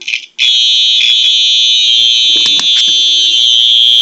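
Fire alarm sounder under test: a couple of short chirps, then from about half a second in a loud, piercing, high-pitched alarm tone that sounds continuously without a break.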